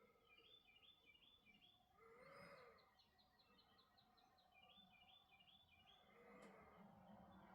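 Faint, quick high chirping calls from an unidentified creature, repeated several times a second in short bouts, with a soft whooshing swell about two seconds in.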